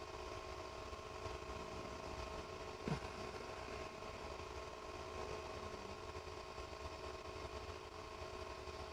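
A powered-on Creality Ender 3 V3 Plus 3D printer humming steadily at idle, several fixed tones over a low rumble, with a brief falling sound about three seconds in.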